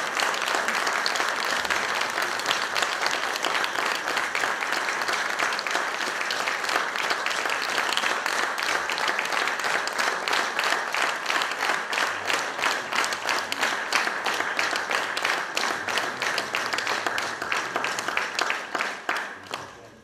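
Audience applauding: dense, even clapping that thins out and stops near the end.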